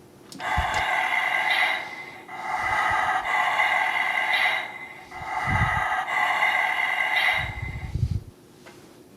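Electronic T-Rex sound effects from the Rescue Bots Optimus Primal toy's small speaker, set off three times in a row, with low knocks from the toy in between.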